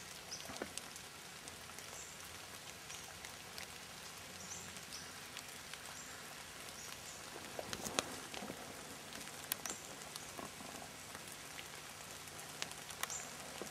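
Light rain falling on dense bush foliage: an even patter with occasional sharper drip ticks, loudest about two-thirds of the way through. Faint short high chirps recur every second or two.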